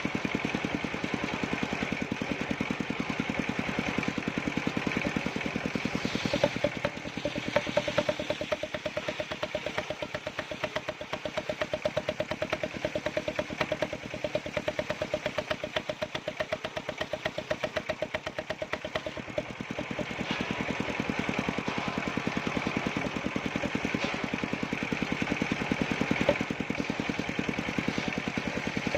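Engine of a wood-cutting machine running steadily with rapid, even firing pulses. From about six seconds in until about nineteen seconds, a steady higher tone rides over it.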